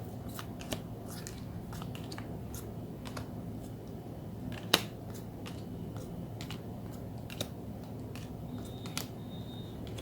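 Photocards being handled and sorted by hand: scattered light clicks and taps of card and plastic, with one sharp, louder click about halfway through, over a steady low hum.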